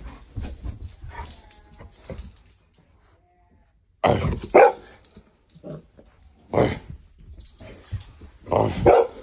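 Dogs barking and yipping in short bursts while playing. The bursts are softer in the first two seconds, stop for about a second, then return louder about four seconds in, with a final loud burst near the end.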